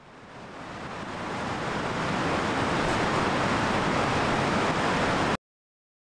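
Creek water rushing at high flow, a steady even rush, fading in over about two seconds and then cutting off abruptly near the end.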